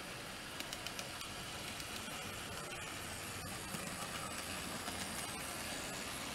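TOMIX N-scale C55 steam locomotive model running along the track, a steady small-motor whir with scattered light clicks of its wheels over the rail joints, growing slightly louder as it passes close by in the middle.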